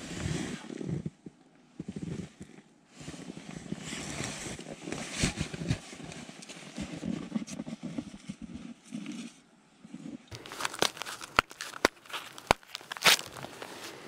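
Footsteps crunching through deep snow, mixed with the rustle of a heavy winter coat. After about ten seconds come a string of sharper, louder crunches and clicks.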